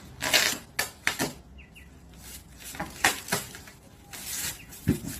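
Dog tearing and pulling at a bag with its mouth and paws, making irregular rustling, crackling bursts, with a soft knock near the end.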